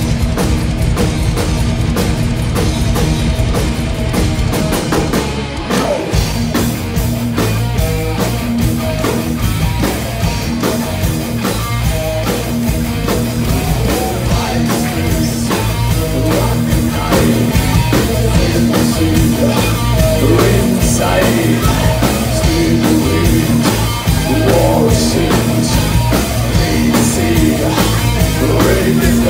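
Heavy metal band playing live: distorted electric guitar, bass guitar and a pounding drum kit, with a male singer singing over them.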